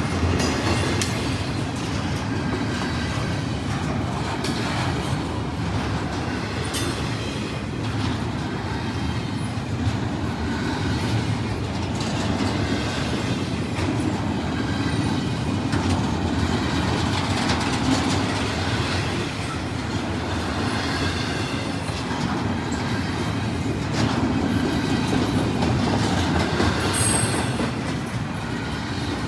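CSX freight train's cars rolling past, their wheels clicking over the rail joints in a steady clickety-clack, with a brief high wheel squeal near the end.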